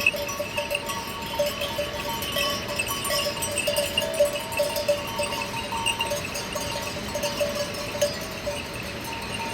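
Livestock bells on a moving flock of sheep and goats, many small bells clanking and jingling continuously.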